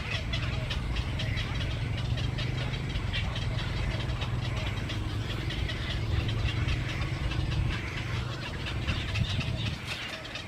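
A flock of birds chattering at once in a dense run of short, quick calls, over a steady low rumble.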